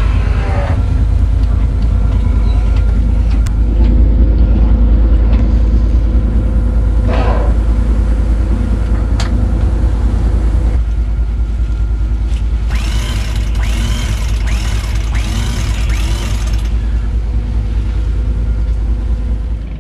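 Steady low rumble of the sailboat under way. About thirteen seconds in comes a run of short, high, rising-and-falling chirps, roughly one a second, lasting a few seconds.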